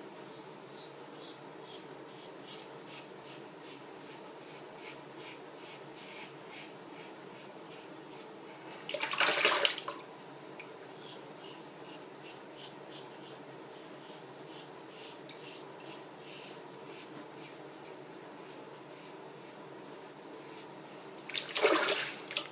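Merkur Progress adjustable safety razor with a Feather blade, set at 2.5, scraping through lathered beard stubble in a string of short strokes, several a second. Twice, about nine seconds in and near the end, a brief rush of water from a tap is the loudest sound.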